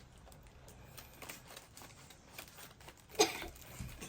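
Light handling noises of MRE packets: faint rustling and small clicks, with one short, louder sound about three seconds in.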